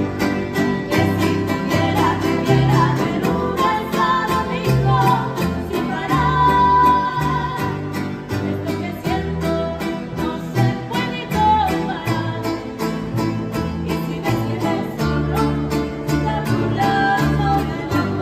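Mariachi trio playing guitarrón, vihuela and guitar: a steady strummed rhythm over deep plucked bass notes, with a woman's singing voice carrying the melody.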